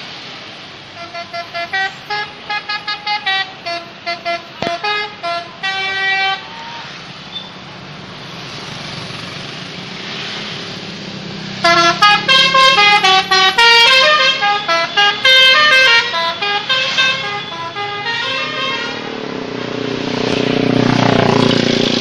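Telolet horns, the multi-note musical horns fitted to Indonesian buses and cars, play quick tunes of short stepped notes. A first run of notes lasts about five seconds. Then comes a louder, faster run with the notes overlapping, and a passing vehicle's engine swells near the end.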